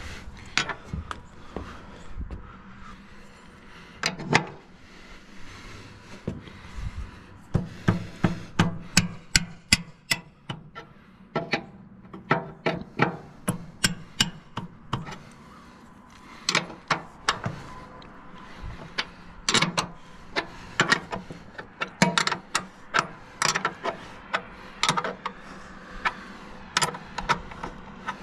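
Hand tools working on the sheet-steel head housing of a grain elevator: irregular sharp metal clicks and clanks, some coming in quick runs of several.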